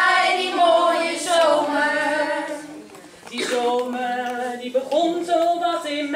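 A choir of children and elderly care-home residents singing a song together in held notes. The phrase breaks off about three seconds in, and the next phrase starts a moment later.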